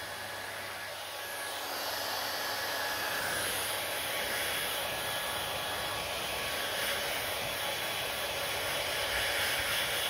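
Handheld hair dryer blowing steadily, its airflow rising somewhat in loudness about two seconds in.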